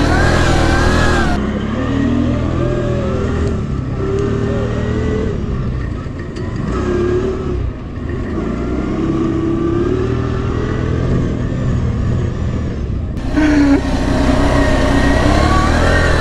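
CFMoto X8 ATV's V-twin engine running under way, its pitch rising and falling repeatedly as the throttle is worked.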